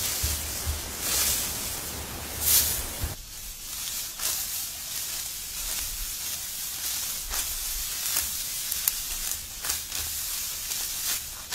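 Dry wheat stalks rustling and crunching as they are grabbed and reaped by hand, with short crisp snaps at irregular intervals over a steady hiss. A low rumble, like wind on the microphone, runs through the first three seconds and stops abruptly.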